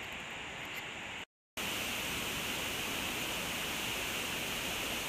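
Steady rushing of a waterfall. It cuts out briefly about a second in, then comes back louder and holds steady.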